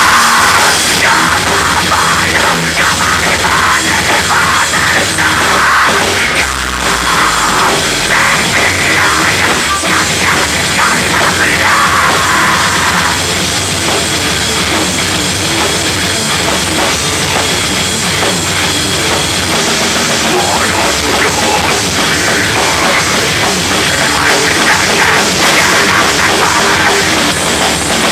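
Metal band playing live and loud: electric guitars, bass and a drum kit, heard from the audience.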